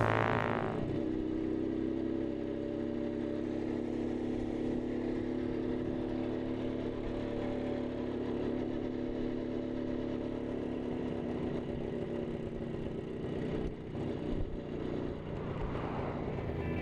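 A steady engine hum holding one even pitch, with a brief dip and a knock about fourteen seconds in.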